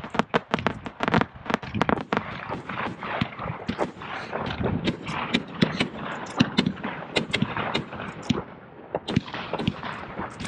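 Aerial fireworks display: a rapid, irregular string of sharp bangs from launches and bursting shells, with a denser crackling spell starting near the end.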